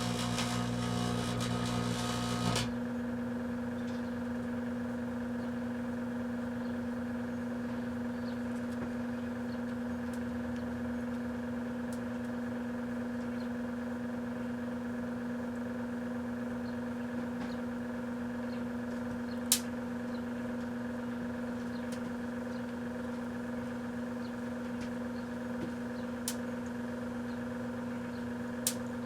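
1984 Kenmore microwave oven running with a steady electrical hum. A louder hiss over it stops about two and a half seconds in, and a few sharp clicks or pops sound in the second half.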